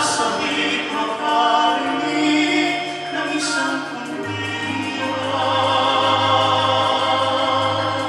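Male pop tenor trio singing in close harmony through handheld microphones, the sound filling out into a held chord over a steady low note about four seconds in.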